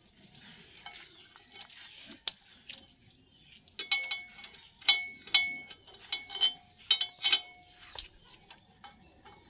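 Metal tools and bolts clinking against the tractor's steel PTO housing and pan, each clink ringing briefly like a bell: one about two seconds in, a quick run of them in the middle, and one more near the end.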